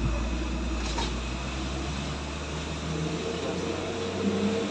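Heavy diesel truck engine running with a steady low drone.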